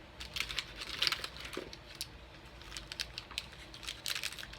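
Plastic snack wrappers crinkling as packages are handled, in a run of irregular small crackles and clicks.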